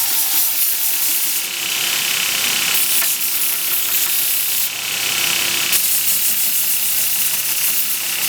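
Belt grinder with a 120-grit belt sanding a knife handle: a steady grinding hiss that brightens and dips several times.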